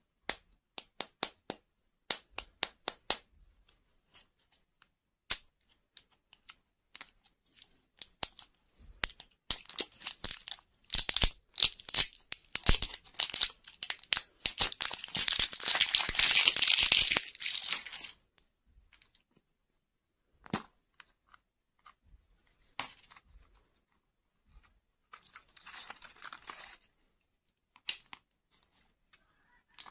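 A run of light clicks and taps from handling a hard plastic lollipop ball, then a long stretch of plastic wrapper crinkling and tearing as it is peeled off. Near the end come a few sharp clicks and a short rustle as the plastic shell is opened.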